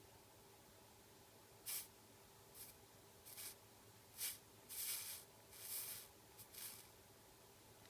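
Soldering iron sizzling in short hissing bursts as its tip touches acid flux and solder on an 18650 lithium-ion cell's terminal, about eight bursts, some brief and some lasting about half a second.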